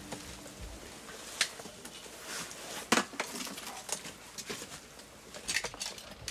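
Scattered clicks and light clatters of disposable plates and plastic spoons as people serve food and eat. The sharpest knock comes about three seconds in, with a small cluster of clicks near the end.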